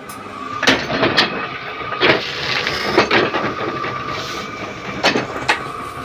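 Paper guillotine cutter running, its big flywheel spinning with a steady whine, and about six loud knocks and clanks at uneven times as the blade mechanism works through a stack of notebook pages.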